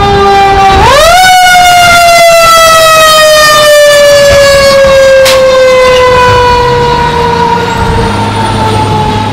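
Fire engine's mechanical siren: a steady wail that winds up sharply about a second in, then slowly winds down, its pitch falling over the rest of the sound.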